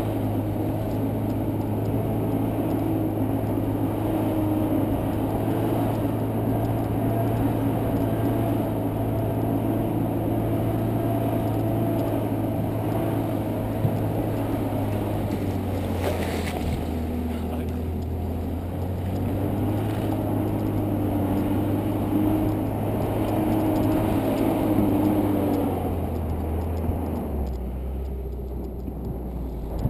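An off-road vehicle's engine running as it drives along a snowy dirt track, with a steady note that drops in pitch about halfway through and again near the end as it slows or changes gear.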